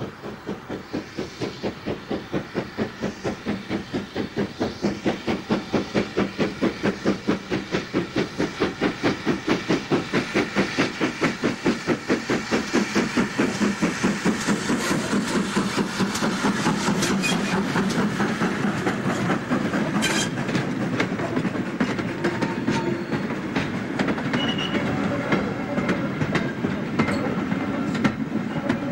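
GWR Manor class 4-6-0 steam locomotive working a freight, its rhythmic exhaust beats growing louder as it approaches and passes. Then the goods wagons roll by with wheels clicking over the rail joints, and a sharp clank about twenty seconds in.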